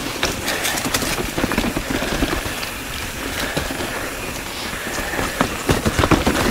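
Mountain bike riding downhill over a rooty dirt trail: a steady rush of tyres on the ground, broken by frequent irregular knocks and rattles as the bike hits roots.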